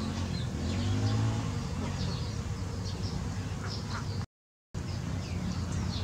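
Eurasian tree sparrows giving short, scattered high chirps over a steady low motor hum. The sound drops out completely for about half a second around four seconds in.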